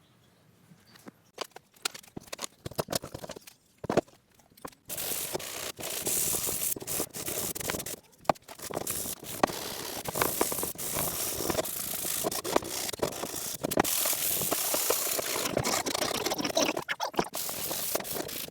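Sparse small clicks and knocks, then from about five seconds in a dense, irregular scratching and scraping noise peppered with clicks, like something being rubbed hard against a rough surface.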